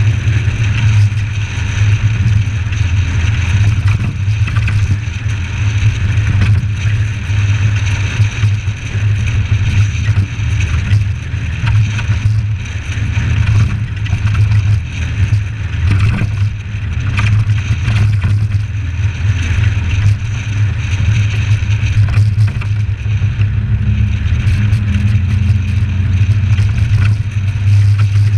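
Suzuki Samurai driving at steady road speed: a constant low drone of engine and road noise, dulled by the camera's sealed waterproof case, which the uploader says makes the sound not quite right.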